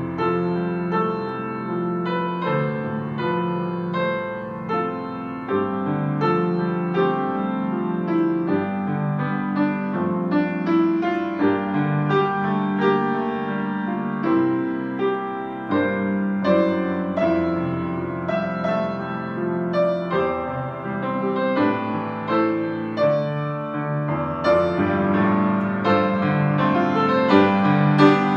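Grand piano played solo: a busy stream of chords and melody over a low bass, growing louder in the last few seconds.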